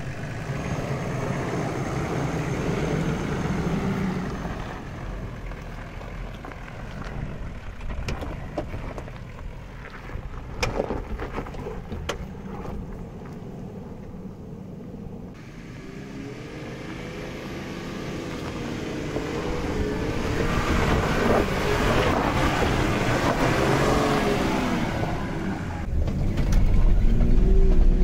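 Off-road 4x4 driving over rough ground, its engine running with a few sharp knocks and rattles. In the second half the engine revs rise and fall, and near the end a heavy low rumble comes in.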